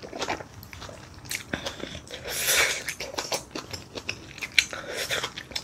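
Close-miked chewing of a mouthful of soft fried rice: wet mouth clicks and smacks, with one louder breathy noise about halfway through.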